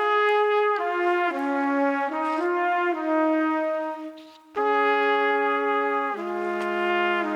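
Background music carried by a brass instrument playing a slow melody of held notes, with a short break about four seconds in.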